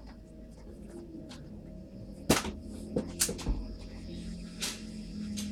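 Sharp snaps and clicks from a Nerf dart battle, blasters firing and foam darts striking: one loud snap about two seconds in, then a quick cluster of smaller clicks and another near the end.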